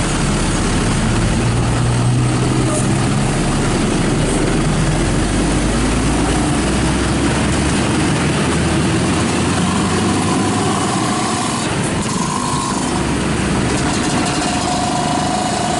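Vehicle engines running steadily with road noise and a low engine drone. Faint steady tones come in about ten seconds in and again near the end.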